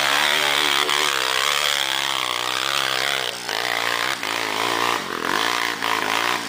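Dirt bike engine running hard and revving, its pitch rising and falling repeatedly as the bike works up a rutted dirt climb.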